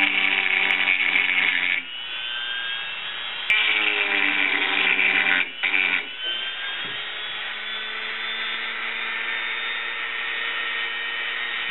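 Small rotary tool with a carbide bit grinding out deep scratches in the surface of a fiberglass boat mold. It grinds loudly in two spells, about the first two seconds and again from about three and a half to six seconds in, with a quieter steady whine between them and for the rest.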